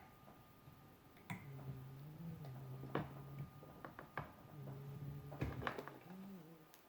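Light clicks and taps from small plastic toy parts being handled and pried at, with a low hum that comes and goes underneath.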